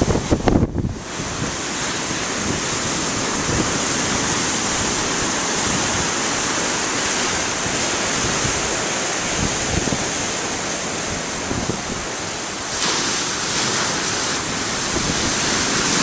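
Big ocean breakers crashing onto shoreline rocks, with a steady rush of surf and whitewater and some wind buffeting the camcorder's microphone. There is a brief muffled thump about half a second in.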